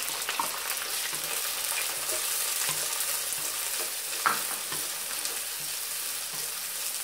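Chopped onions sizzling in hot oil in a clay pot, with a wooden spatula stirring and scraping them against the pot. A single brief knock about four seconds in.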